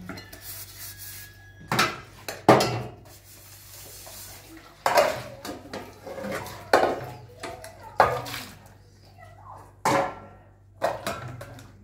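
Stainless-steel plates and pots clanking against each other in a sink as dishes are washed by hand, with about seven sharp metallic knocks that ring briefly, a second or two apart.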